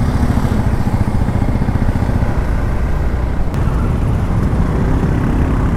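Hero Xpulse 200 4V's single-cylinder, oil-cooled engine running steadily at low speed under way, with road noise around it.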